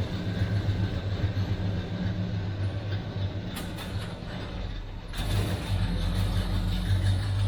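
Engine of a 1968 Chevy C-10 pickup running steadily, with a few sharp clicks about halfway through.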